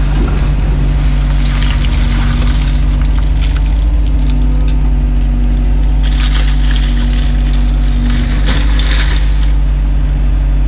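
Doosan crawler excavator's diesel engine running steadily, heard from inside the cab. Over it come two rattling, pouring stretches of soil and stones falling from the bucket, the second, about six seconds in, as mud is dumped into standing water.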